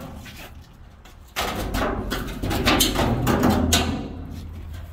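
A large torch-cut corrugated steel panel from a shipping container wall starts scraping and rumbling loudly about a second and a half in as it is pushed back upright, and dies down near the end.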